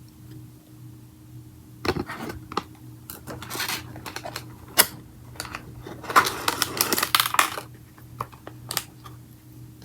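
Hard clicks and knocks of plastic slime-kit containers and packaging being handled and set down, with rustling of packaging in between.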